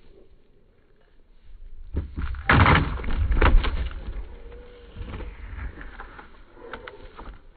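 A body slammed down onto a board laid on a padded gym mat: a loud crash and thud about two and a half seconds in, fading into rustling and scuffling.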